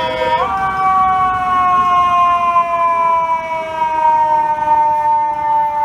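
Fire truck siren sounding one long tone that steps up slightly just after the start, then slides slowly and steadily down in pitch, over loud street traffic noise.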